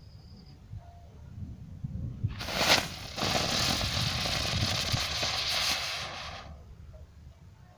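A lit ground firework flares up suddenly a little under three seconds in, then hisses steadily as it sprays sparks for about three seconds before dying away.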